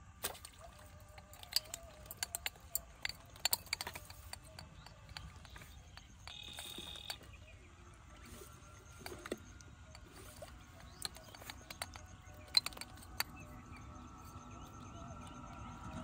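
Scattered sharp clicks and light rustles from landing a small fish on a hand-held stick rod and handling the catch and line. A short high-pitched call, probably a bird, sounds once a little past the middle.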